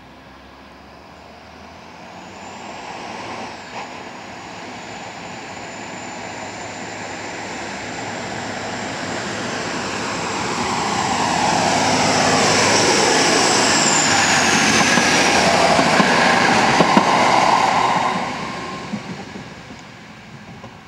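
AKN diesel railcar approaching and passing close by: its engine and wheels on the rails grow steadily louder to a peak, with a falling pitch and a few sharp knocks as it goes past. The sound then falls away quickly near the end.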